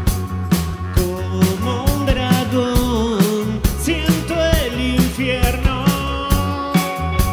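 A rock band playing live: drums keeping a steady beat under electric guitar, bass and keyboards, with a man singing lead from about a second and a half in until near the end.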